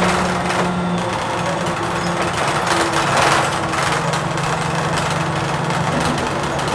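Interior of a Blue Bird TX4 CNG bus under way: its Cummins Westport ISL-G natural-gas engine and drivetrain droning steadily under dense body and fitting rattles. The drone drops in pitch about a second in and settles lower.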